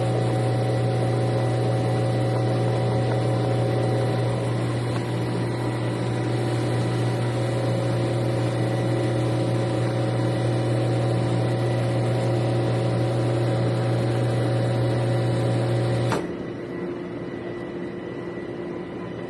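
Espresso machine pump running with a steady low hum while pulling a shot. It cuts off suddenly about sixteen seconds in, leaving a fainter hum.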